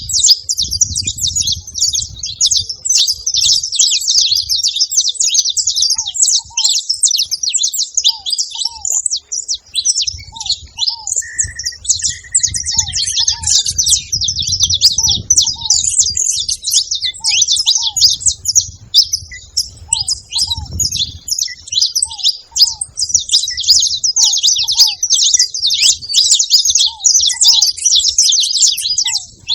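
Saffron finches chattering and calling all at once in a dense, unbroken high twittering. Short pairs of lower notes repeat every second or two, and a single drawn-out whistle comes about a third of the way in.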